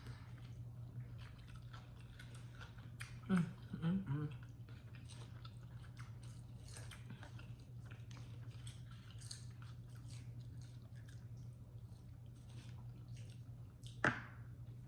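A person chewing and biting food close to the microphone, with crunching and small wet mouth clicks. There is a brief voiced sound about three seconds in, and a steady low hum underneath.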